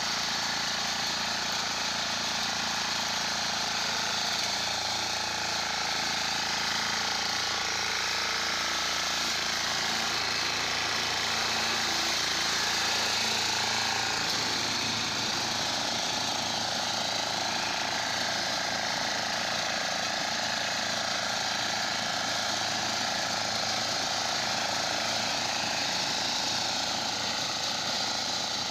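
Walk-behind power reaper running steadily under load, its small engine and reciprocating cutter bar cutting through tall standing crop.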